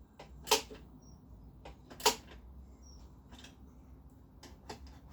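Hand tools and small metal parts clinking and clicking as they are handled, in a few separate sharp knocks, the two loudest about half a second and two seconds in.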